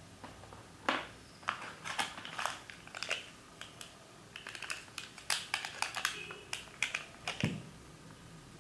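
Plastic packaging crinkling and clicking as the accessories from a smartphone box are unwrapped by hand, an irregular run of sharp crackles and small taps over several seconds.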